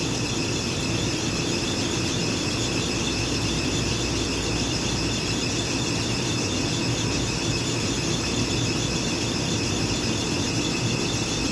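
Steady high-pitched whine, several even tones together, over a low hum and hiss that stay unchanged throughout: continuous background machine noise.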